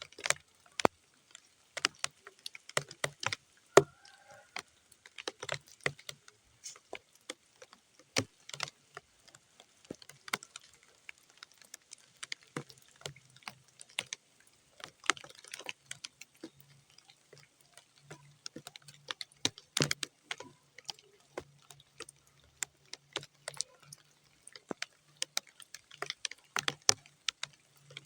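Raindrops falling on muddy ground, coming as separate sharp splats at an irregular pace rather than a steady downpour.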